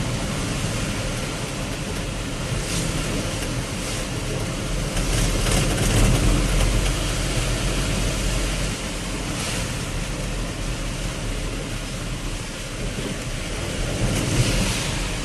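Steady road and rain noise from a vehicle riding through heavy rain, with low rumble and wind hiss. It swells louder about five seconds in and briefly near the end.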